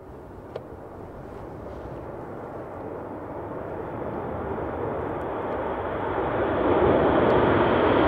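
Red Arrows formation of BAE Hawk T1 jets flying past: a steady jet roar that grows louder and brighter as the formation approaches.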